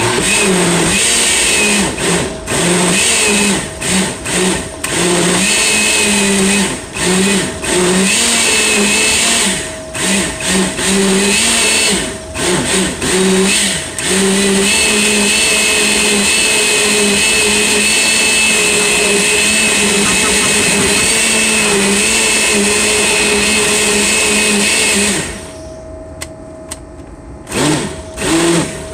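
Loud electric countertop blender puréeing pineapple barbecue sauce. It is pulsed on and off in short bursts for the first fourteen seconds or so, then runs steadily for about eleven seconds before stopping. A few more short pulses follow near the end.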